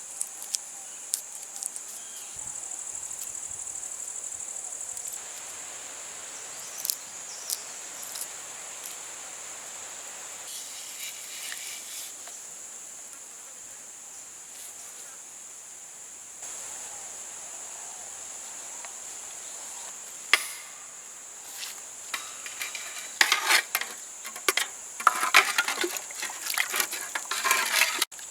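Insects chirring steadily in a high, even drone. Scattered sharp clicks and knocks come through it, growing busier for the last few seconds.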